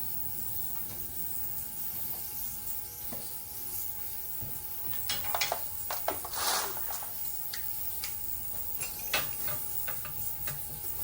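Steady hum of an ultrasonic parts cleaner running, with scattered clicks and clinks and a short hissing rustle about six and a half seconds in.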